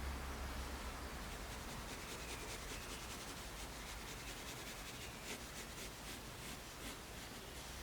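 Graphite pencil (5B Tombow MONO 100) scratching on printing paper in quick repeated strokes, several a second, as in shading or hatching.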